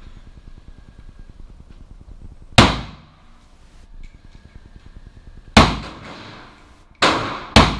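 Four handgun shots, the last two about half a second apart, each followed by a short echo off the walls of an indoor range.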